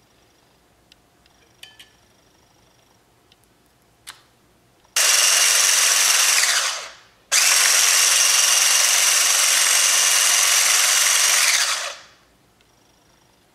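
Electric hand blender with a whisk attachment whirring as it beats a liquid egg, sugar and butter mixture in a bowl. It runs for about a second and a half from about five seconds in, stops briefly, then runs again for about four and a half seconds, winding down each time it is switched off.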